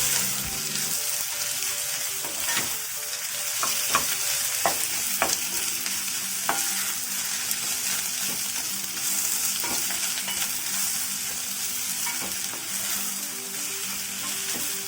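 Thinly sliced carrots sizzling in hot oil with garlic and dried red chilies, stirred in the pan, with a steady hiss and a scattering of sharp clicks as the utensil knocks the pan in the first half.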